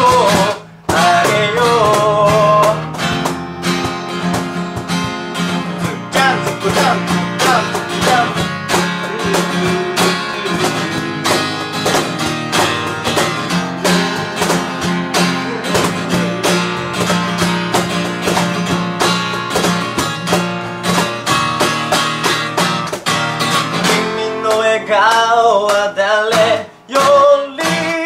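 A small band playing live: strummed acoustic guitar, electric bass and drums, with singing in the first few seconds and again near the end, and an instrumental stretch in between.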